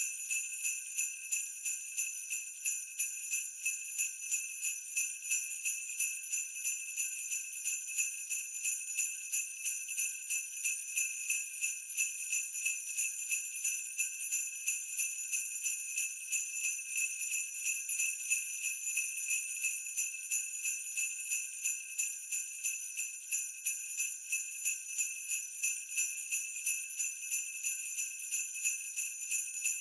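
Sleigh bells ringing in a steady, even rhythm of a few jingling shakes a second, bright and high-pitched.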